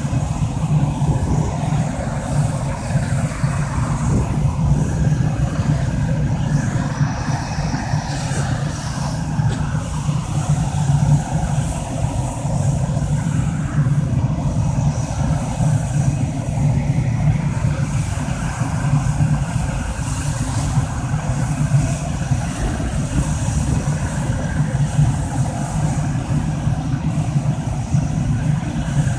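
Swiss Air Force F/A-18 Hornet's twin General Electric F404 jet engines running at taxi power: a steady low roar with a thin high whine above it.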